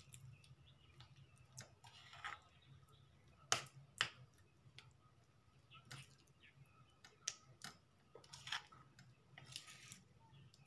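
A hand squishing raw shrimp through a thick wet batter in a ceramic bowl: faint, soft squelches now and then, with two sharp clicks about half a second apart a few seconds in.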